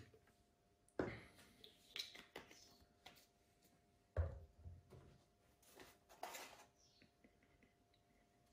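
A few quiet knocks, clunks and scrapes as kitchen containers (an olive oil bottle, a milk carton and a plastic measuring jug) are picked up and set down on a countertop, the loudest about a second in and just after four seconds. A faint steady hum lies under it.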